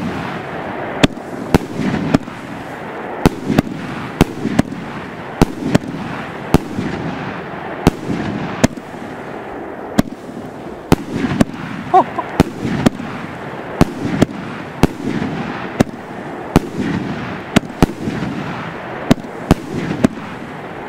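A 36-shot, 45 mm consumer fireworks battery firing its finale: a rapid, irregular string of sharp bangs from aerial shell bursts, one or two a second, over continuous crackling and rumbling between them.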